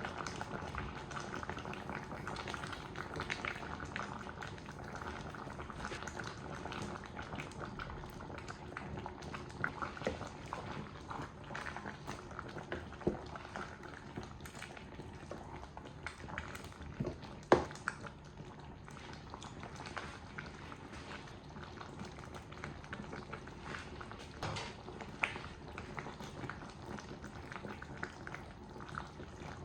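A pot bubbling on the boil, a steady simmering hiss with scattered small pops, and one sharp knock about 17 seconds in.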